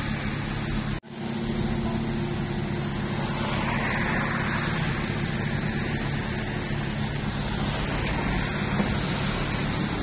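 Komatsu D21P bulldozer's diesel engine running steadily, with a brief dropout about a second in.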